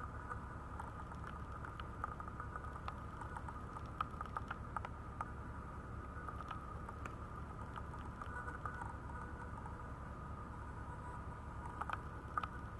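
Quiet indoor room tone: a steady hum with faint, scattered light clicks and taps throughout.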